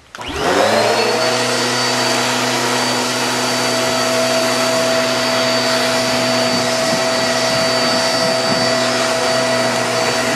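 Eureka AirSpeed Exact Pet bagless upright vacuum switched on in tools mode. Its motor spins up with a rising whine over about the first second, then runs steadily with a high whine, drawing suction through the hose wand on couch upholstery.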